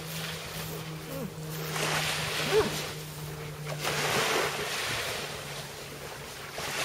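Waves and surf washing in a steady rush, with a low steady hum beneath and two faint short whines, about a second and two and a half seconds in.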